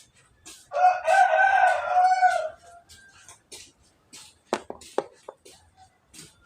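A rooster crowing once, about a second in, for under two seconds. A few sharp clicks follow near the end.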